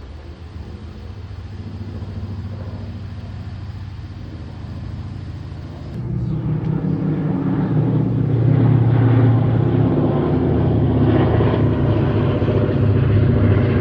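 Aircraft engine running with a steady low hum of several pitches, growing markedly louder about six seconds in.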